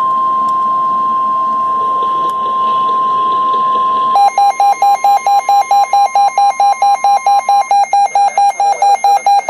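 A single steady alert tone near 1 kHz, the long warning alarm tone that precedes a weather-radio emergency alert. About four seconds in, a loud electronic alarm beeping starts, pulsing about four times a second with an alternating pitch, while the steady tone fades out beneath it.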